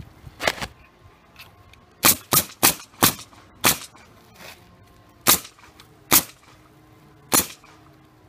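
Pneumatic roofing nailer firing nails through asphalt ridge cap shingles: about nine sharp cracks at uneven intervals, with a quick run of four about two to three seconds in.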